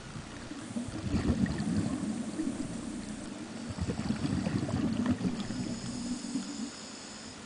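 Scuba regulator exhaust bubbles heard underwater: two bubbling, rushing bursts of about two seconds each as a diver breathes out, with a faint high whistle near the end.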